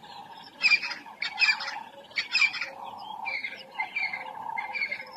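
Bird calls: a run of short, harsh squawks repeating roughly every half second to a second, over a steady hum.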